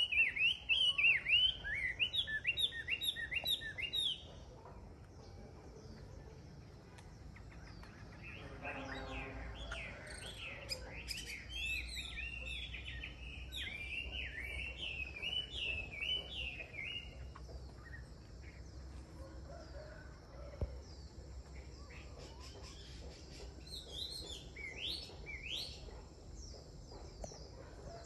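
Chinese hwamei singing: loud, rapidly repeated whistled phrases, then a softer, varied run of notes, with a few sweeping notes near the end.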